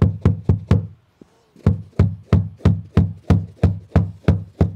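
Hammer striking rapidly along the edge of a stair runner, about three to four blows a second with a brief pause about a second in. It is banging the staples in so they bend over and hold the runner on.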